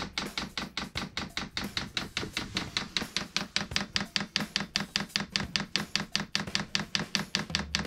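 Chinese 12 V diesel air heater's fuel dosing pump ticking steadily, about five clicks a second, as it runs to prime the fuel line with diesel.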